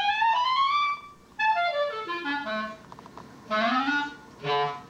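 Clarinet played behind a closed door, sliding in long glissandos: a slow rise in pitch, a short break, a slow fall, then a brief upward swoop and a short held note near the end.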